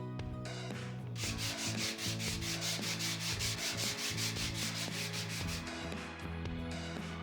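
Sandpaper rubbed back and forth over wood in quick, even strokes, several a second, starting about a second in and stopping near the end, over background music.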